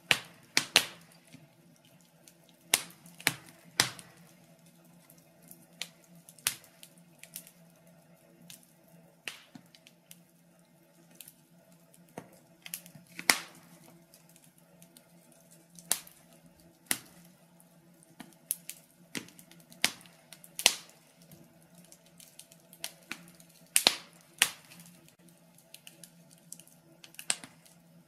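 Wood fire crackling in a stove: irregular sharp pops and snaps, one or two a second, over a low steady hum.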